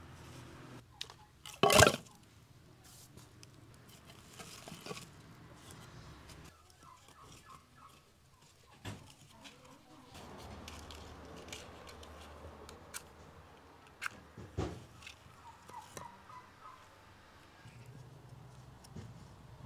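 Firewood logs being handled: knocking and clattering as they are pulled from a woodpile and then laid in a concrete-block fire pit. There is a loud clatter of wood about two seconds in and another sharp knock near fifteen seconds, with lighter taps and rustling in between.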